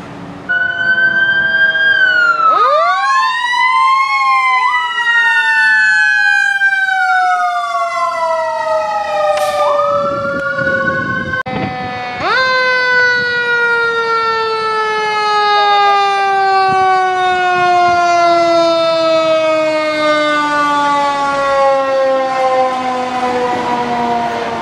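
Sirens on fire apparatus responding to a structure fire, several sounding at once. Quick rising and falling sweeps in the first few seconds give way to long, slowly falling wails, and one siren winds back up sharply about halfway through.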